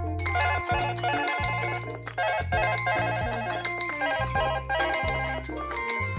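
Smartphone alarm tone playing an electronic melody. Quick warbling note figures repeat in phrases about a second long over a steady bass line.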